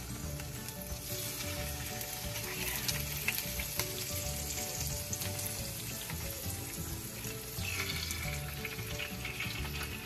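Bacon strips sizzling in hot oil in a nonstick frying pan, a steady hiss with fine crackles.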